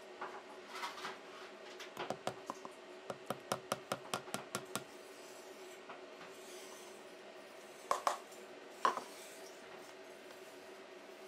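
A plastic bowl knocked against the rim of a metal mixing bowl to shake out flour: a quick run of light taps, about four a second, then two louder knocks.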